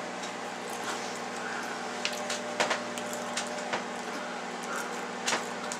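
A person chewing a mouthful of dry saltine crackers: a handful of short, sharp crunches over a steady low hum.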